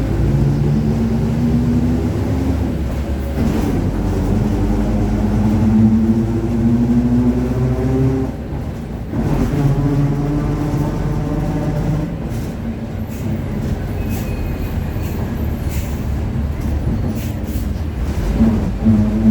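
Mercedes-Benz OF-1721 BlueTec5 city bus heard from on board while accelerating: a loud hum climbing in pitch, broken twice by gear changes, with the growl of the differential under load.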